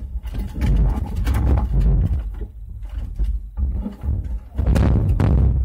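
Low thumps and rustling as hands press and pat a raw meatloaf mixture into a loaf on crinkled aluminium foil in a pan, coming and going irregularly.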